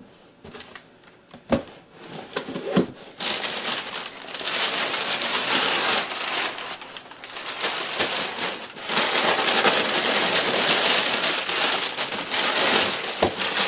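Heavy brown kraft packing paper being pulled out of a cardboard shipping box and crumpled. A few light rustles and knocks come first, then about three seconds in it turns to loud, continuous crinkling and rustling.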